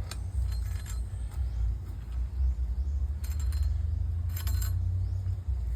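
Metal tools clinking and scraping against pipe fittings while a fitting is tightened: short clusters of clinks near the start, around three seconds in and again about a second later, over a steady low rumble.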